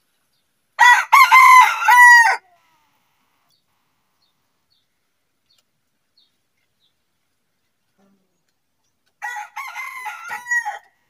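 Rooster crowing twice, about eight seconds apart: a loud crow lasting about a second and a half, then a quieter one near the end.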